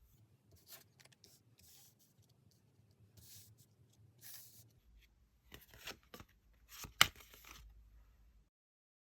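Tarot cards being handled, with a run of light papery rustles and slides and one sharp tap about seven seconds in.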